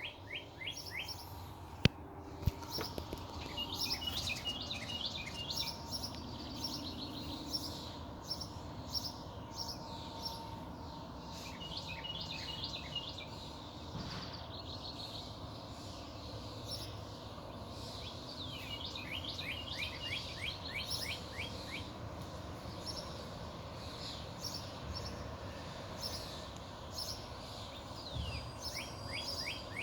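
Ducklings peeping: quick runs of short, high chirps that come and go every few seconds.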